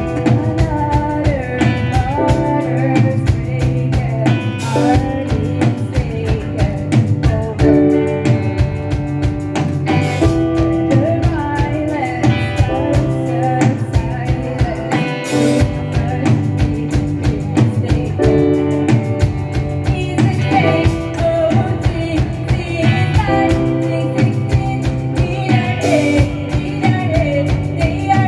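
Live rock band playing a song: drum kit keeping a steady beat, electric guitars, bass guitar and piano, with a singer's voice over them.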